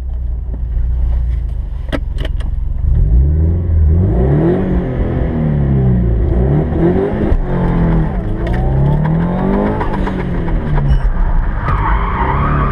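Tuned, turbocharged Subaru Legacy B4 (BE5) flat-four engine heard from inside the cabin: running steadily at first, then from about three seconds in revving up and down again and again as the car is driven hard. A couple of sharp clicks come early on, before the revving starts.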